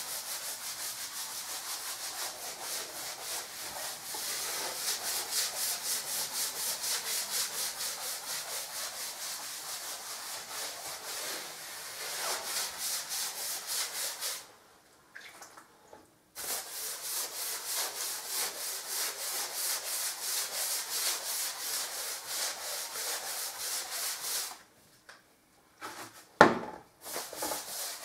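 Wide wall brush scrubbing diluted PVA sealer onto bare plaster in quick, even back-and-forth strokes. The brushing breaks off twice, about halfway and near the end, where a single sharp knock is the loudest sound.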